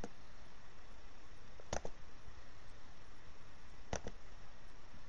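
Clicks of a computer pointer's buttons: one click at the start, a quick double click just under two seconds in, and another click about four seconds in, over a steady low hiss.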